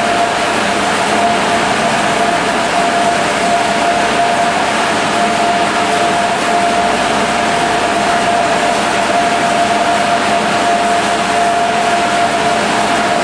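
Olive mill machinery running: a loud, even mechanical noise with one steady tone running through it.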